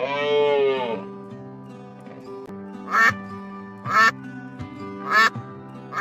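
A cow mooing once, a long call in the first second, then a duck quacking loudly about once a second from about three seconds in, over steady background music.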